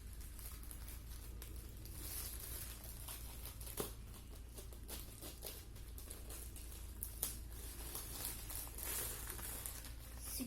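Plastic packaging being crinkled and torn by hand while a parcel is opened, with scattered sharp clicks and rustling.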